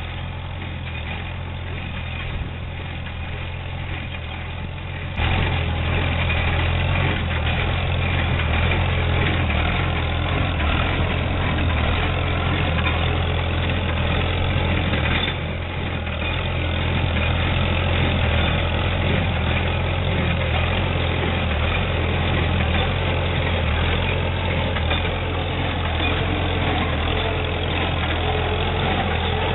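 Tractor engine running steadily while pulling an International 37 square baler at work, its steady mechanical clatter over the engine hum. It gets suddenly louder about five seconds in.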